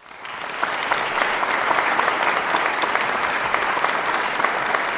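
An audience applauding: many hands clapping, building up quickly at the start and then holding steady.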